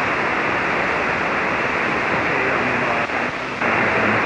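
Steady hiss of shortwave band noise from an amateur radio transceiver's SSB receiver on the 40-metre band, heard while no station is transmitting. It dips slightly about three seconds in.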